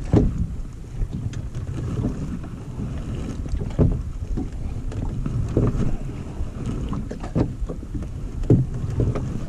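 Wind buffeting the microphone over choppy water, with waves slapping against the hull of a small fibreglass boat about every two seconds.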